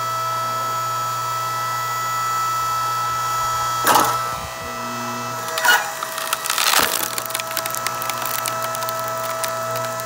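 Hydraulic log splitter's motor humming steadily. A few wooden knocks come between about four and seven seconds in as a log is set on the bed. Then the wood crackles and splinters as the ram pushes the log into the wedge.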